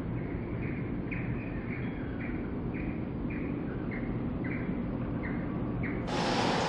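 Front-loader garbage truck's diesel engine running steadily while the dumpster is held upside down over the hopper, with short high chirps repeating about twice a second. About six seconds in, a louder rushing noise starts.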